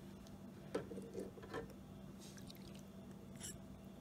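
Three small metallic clinks about a second in, with faint liquid drips, as a carburetor float bowl is lifted out of an ultrasonic cleaner's degreaser bath with pliers, over a faint steady hum.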